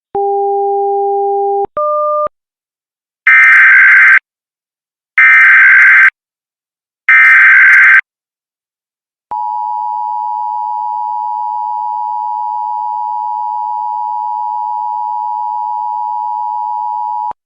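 Emergency Alert System broadcast opening: a short two-step electronic tone, then three loud bursts of warbling SAME header data, each about a second long, carrying the digital header for a Civil Emergency Message. Then the steady two-tone EAS attention signal, held for about eight seconds.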